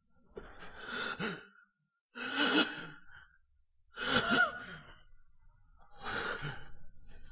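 A wounded man's heavy, strained breaths, four in a row with a groan of voice in them, the laboured breathing of someone hurt and exhausted.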